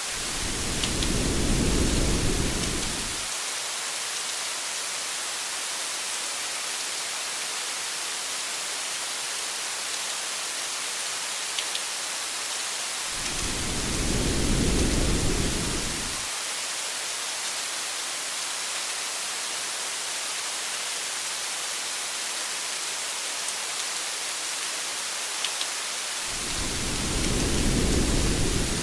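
Steady rain hiss with a few faint drop ticks, broken three times by a low rumble of thunder about three seconds long, roughly every thirteen seconds.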